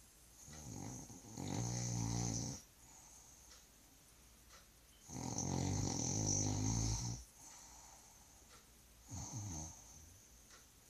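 Snoring: three snores about four seconds apart. The second is the loudest and longest, and the last is short and softer.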